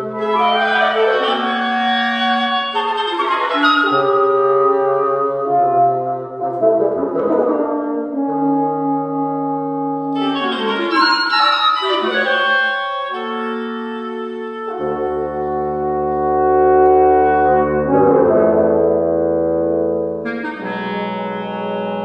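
Wind quintet of flute, oboe, clarinet, French horn and bassoon playing overlapping held notes and chords. A low bass line joins about two-thirds of the way through.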